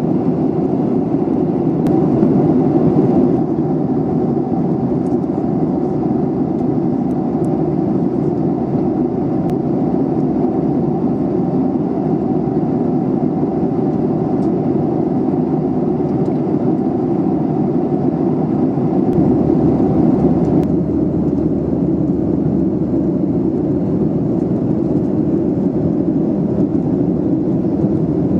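Jet airliner cabin noise: the steady, deep rush of engines and airflow heard inside the passenger cabin, with a few faint ticks.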